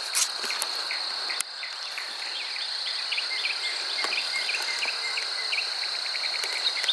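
Outdoor insect chorus: a steady high-pitched trill like crickets, with rapid short chirps repeating over it and a couple of sharp clicks in the first two seconds.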